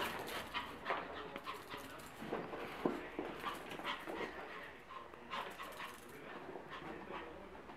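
A small dog making short, irregular whimpering sounds while play-fighting with a cat, with quick scuffling noises.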